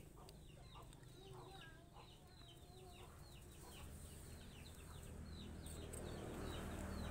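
Faint chickens in the yard: low clucking among a steady run of short, high, falling chirps.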